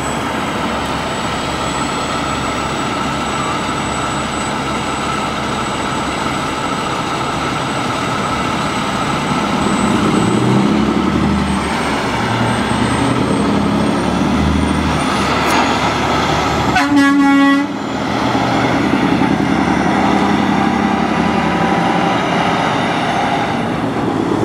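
Semi truck's diesel engine running as the rig pulls past, growing louder about halfway through. About two-thirds in, a truck air horn gives one blast of about a second.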